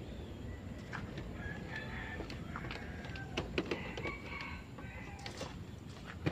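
Chickens clucking in short, irregular calls, with a few sharp clicks, over a steady low rumble.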